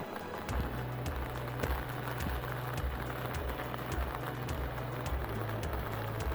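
Heavy rain falling, an even hiss with many small drop ticks. A low pulsing rumble comes in underneath about half a second in.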